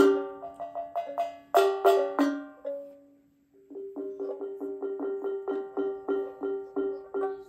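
Live acoustic instrumental music: bright plucked and struck notes ringing out and dying away, dropping to near silence about three seconds in, then a fast, even repeated note, about five a second, with higher notes over it.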